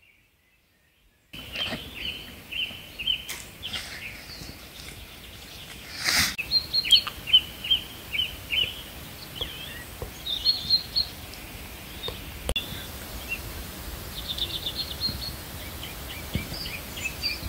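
Small birds singing and calling outdoors: short high chirps repeated in quick runs over a steady background hiss, starting about a second in after near silence, with a couple of brief knocks.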